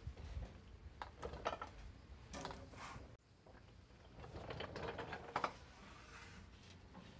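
Faint, scattered clicks and rattles with a few short scrapes as stainless steel fuel line is handled and worked under a car's floor pan.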